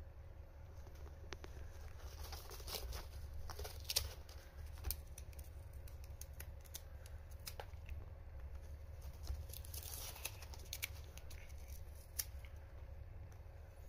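A cat biting and tearing at a shredded corrugated-cardboard scratching pad: irregular ripping and snapping of cardboard.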